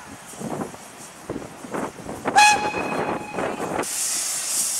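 15-inch gauge steam locomotive sounding its whistle once, a single steady note about a second and a half long starting a little over two seconds in. It is followed by a loud hiss of escaping steam as the engine starts away.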